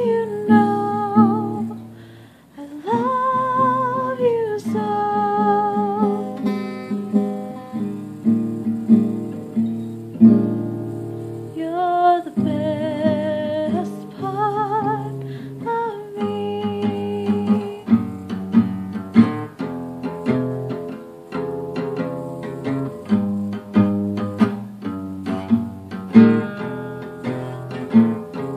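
Guitar strummed while a woman sings held notes with vibrato. About 16 seconds in the singing stops and the guitar strumming carries on alone.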